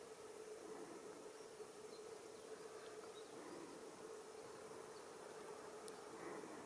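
Near silence: a faint steady hum under hiss, with a few faint ticks and one sharp click near the end.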